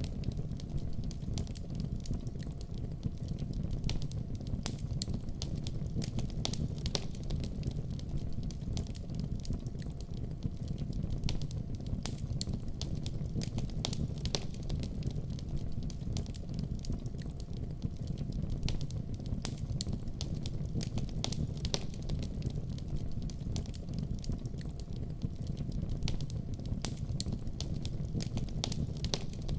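Wood fire crackling in a fireplace: a steady low rumble of the flames with frequent sharp pops and snaps scattered throughout.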